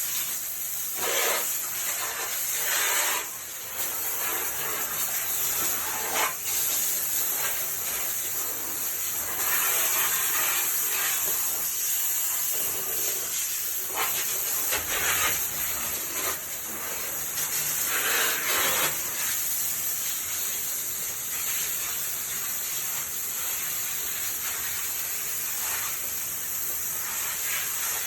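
Hose spraying water into a basement drain: a steady hiss of the spray with louder splashing surges every few seconds as the stream shifts and the water runs down into the drain.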